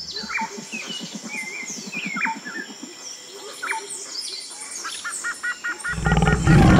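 Wildlife ambience of birds chirping in quick, downward-sweeping calls over a low rapid rattle. About six seconds in, a loud, low big-cat roar begins.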